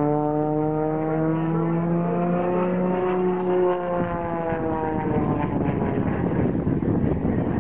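Propeller-driven aerobatic monoplane's engine droning loudly in a smoke-trailing dive and low pass. Its steady tone bends slightly upward, then drops about four to five seconds in, after which the sound turns rough and rushing.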